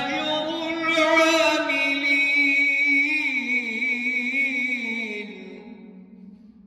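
A man's voice chanting Quran recitation in melodic tajweed style, holding one long drawn-out phrase whose pitch wavers and then slowly falls. It fades away over the last second or so.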